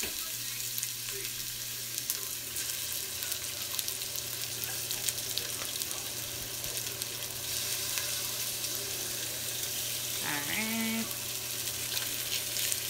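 Raw lamb chunks sizzling and crackling in hot olive oil as they are laid into a stainless steel pot to brown.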